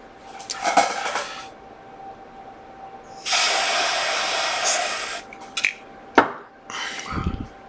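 Aerosol freeze spray hissing in one steady burst of about two seconds, about three seconds in, with a shorter spurt near the start and a few clicks afterwards. The spray frosts a powered iPhone logic board so that the frost melts first over the component that is heating up on a shorted 1.8 V rail.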